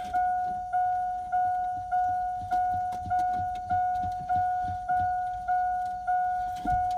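Vehicle warning chime dinging steadily, one decaying ding about every 0.6 seconds, as with the door open and the key on. Faint knocks and rustling of hands working on wiring, with a low thump near the end.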